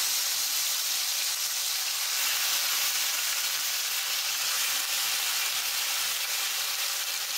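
Katla fish steaks frying in hot mustard oil in a kadai, with a steady sizzling hiss. The pieces are laid into the oil one after another.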